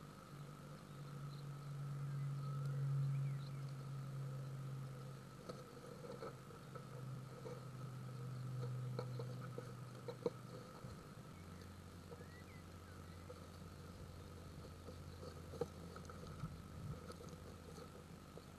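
Steady low electrical hum and a thin high whine from a nest-box camera's microphone. The hum drops in pitch about halfway through. Over it come scattered small scratches and clicks as the tit nestlings shift about in the nest, and a couple of faint cheeps.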